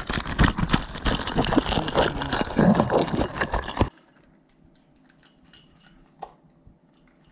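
Loud rustling and clattering right against the microphone that stops suddenly about four seconds in. Then a Shetland sheepdog eats from her bowl, with faint clicks and one sharper click against the bowl.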